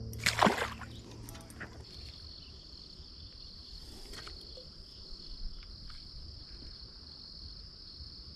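Steady high-pitched insect trill, like crickets, carrying on without a break and growing stronger about two seconds in. A short swish stands out about half a second in.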